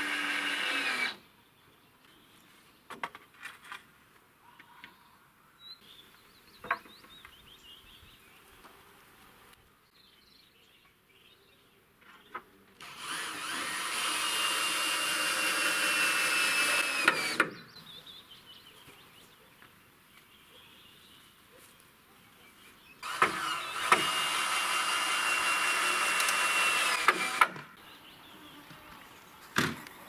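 Corded electric drill driving screws into the wooden boards at the foot of a scaffold: a short run at the start, then two long runs of about four and a half seconds each, the motor's steady whine dipping at the end of each. Faint knocks and clicks between the runs.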